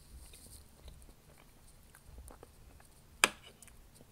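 Faint mouth sounds of chewing a soft bite of coconut cream pie. About three seconds in there is one sharp click of a metal fork against the plate as the next forkful is cut.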